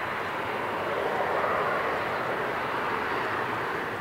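Boeing 737-400's CFM56 turbofan engines running as the airliner rolls slowly along the runway: a steady rushing noise that swells a little in the middle.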